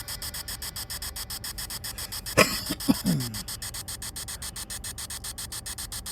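Spirit box sweeping through radio stations: hiss chopped by rapid, regular clicks, about eight or nine a second. A few short broadcast fragments falling in pitch break through about two and a half to three and a half seconds in.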